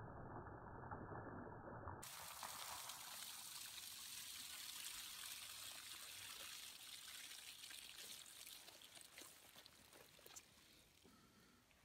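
Faint splashing of water streaming from a shot-through plastic gallon jug onto a tree stump and grass, thinning to a trickle and fading out from about eight seconds in.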